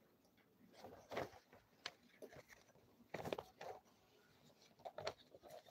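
Near silence, broken by a few faint, brief rustles and taps.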